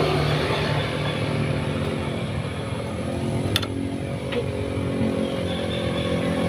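A motorcycle engine idling steadily, with a single sharp click about three and a half seconds in.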